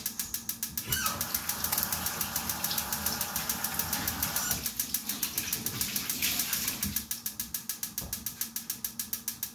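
A steady mechanical rattle of rapid, even clicks, about eight a second. For a few seconds near the start a rushing noise runs under it.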